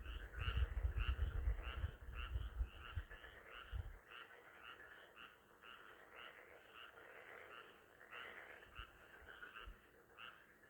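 A chorus of frogs croaking: short calls repeating steadily, about two or three a second, overlapping into a continuous chorus. Low rumbling runs under the calls for the first few seconds, then stops.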